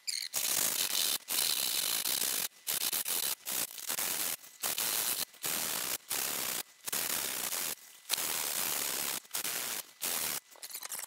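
Permagrit aluminium sanding block rasping over EPP foam, sanding down hardened CA glue along the wing spars. About a dozen short back-and-forth strokes with brief pauses between them.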